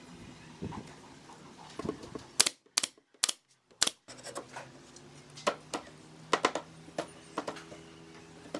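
Sharp clicks and knocks of pine boards being handled and pushed into place in a desk frame: four loud knocks in the first half, then lighter scattered taps over a steady low hum.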